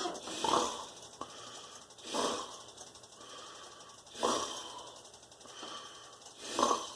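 A person breathing close to the microphone: four loud breaths about two seconds apart.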